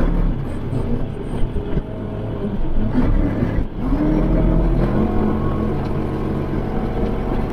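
Kubota L3560 tractor's diesel engine running steadily, its pitch rising about four seconds in and holding higher.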